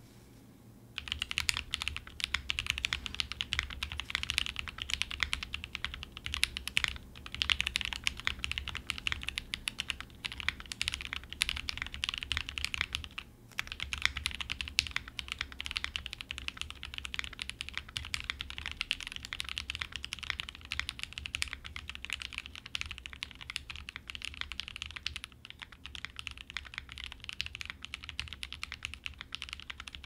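Continuous typing on a gasket-mounted Boop65 65% mechanical keyboard with Gateron Black Ink V2 linear switches and Durock V2 stabilizers, its case filled with poly-fill instead of case foam. The typing starts about a second in and breaks off briefly a little before halfway.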